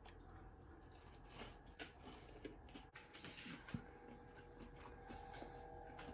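Faint chewing of a crisp panko-breaded TVP nugget: small scattered crunches and clicks, one sharper tick about two thirds of the way through, over near silence.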